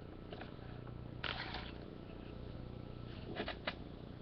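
Faint handling of trading cards: a short rustle about a second in and two light ticks near the end, over a steady low hum.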